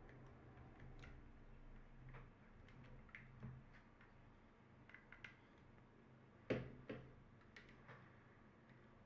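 Faint, scattered clicks and taps of small plastic headset parts being handled during disassembly, with two louder sharp knocks about six and a half seconds in, over a faint low hum.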